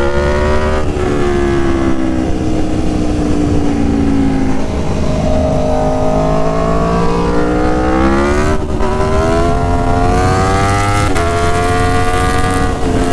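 Aprilia Tuono Factory's V4 engine through an SC Project S1 aftermarket exhaust, loud, pulling hard as the bike accelerates. The pitch rises and breaks off with quick upshifts about a second in and several more in the second half, easing slightly in between.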